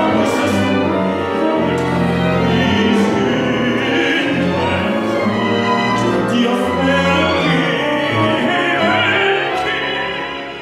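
Opera singing: a solo voice leads an ensemble of singers over orchestral accompaniment in sustained, wavering notes. The music dies down a little near the end.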